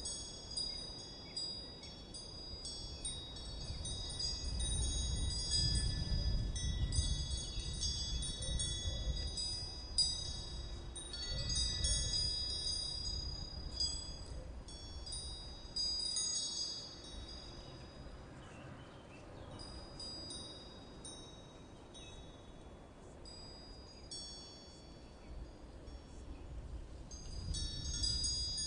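Chimes ringing at random, many high tones struck over one another, thinning out past the middle and picking up again near the end, over a low rumble that swells and fades.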